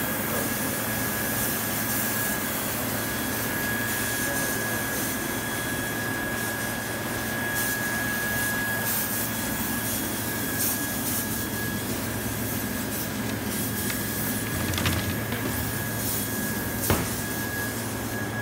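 Large CO2 laser cutting machine running, its fans giving a steady rushing noise with a thin steady whine and a low hum. A couple of light knocks near the end.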